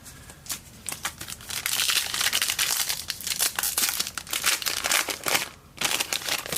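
Plastic trading-card pack wrapper being torn open and crinkled by hand, a dense run of crackling with sharp ticks that pauses briefly near the end and starts again.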